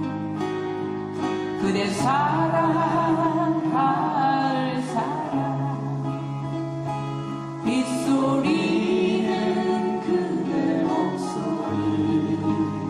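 Live performance of a Korean folk ballad on four acoustic guitars strummed together, with a singer's voice carrying the melody over the chords.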